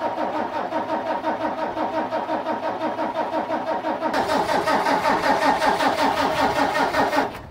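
Case IH Magnum 305 tractor's diesel engine turning over under the starter with an even, rhythmic pulsing, which gets harsher about four seconds in and dies away near the end.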